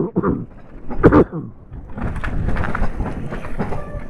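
Wind buffeting the GoPro's microphone, with tyre rumble from an electric bike riding along a canal towpath. A short voice sound comes about a second in.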